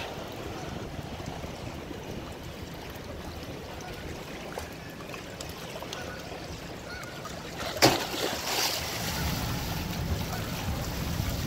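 Wind on the microphone and choppy water lapping, a steady rushing noise. A sharp knock sounds about eight seconds in, and after it the low wind rumble grows stronger.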